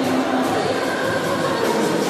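Music playing, with the murmur of a crowd underneath.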